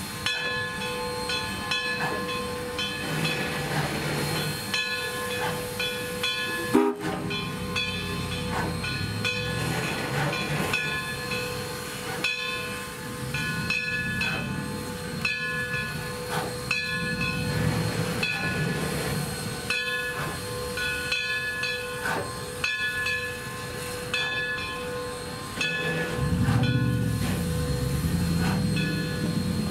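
Baldwin-built S160 2-8-0 steam locomotive moving slowly, its steam hissing over a low rumble, with a high ringing repeated about once a second. A single sharp knock comes about 7 seconds in, and the low rumble grows louder near the end.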